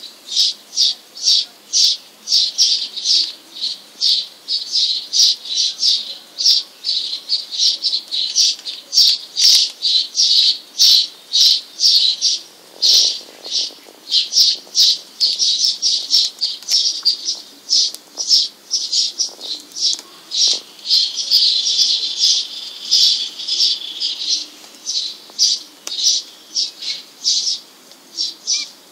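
Short high-pitched chirping calls repeated steadily, about two or three a second.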